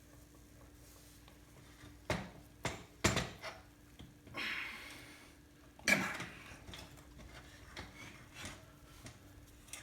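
Metal clunks and scraping as a 2003 Suzuki RM250 two-stroke engine is worked out of its frame. There are a few knocks about two and three seconds in, a scrape around four to five seconds, a sharper knock near six seconds, and then lighter taps.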